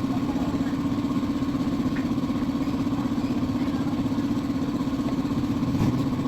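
Yamaha Aerox 155 scooter's single-cylinder engine idling steadily with an even, fast pulse.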